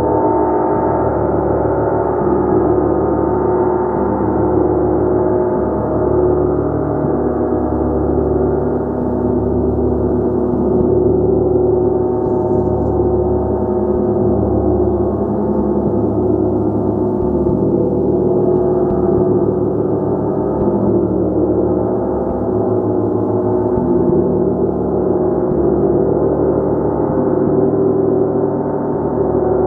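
Gong played continuously: a dense, sustained wash of many overlapping tones held at an even level, with no single strike standing out.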